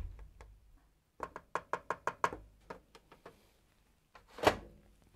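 Quick plastic clicks and taps from handling a liquid-detergent bottle and its dosing cap at a washing machine's dispenser, then one louder knock about four and a half seconds in.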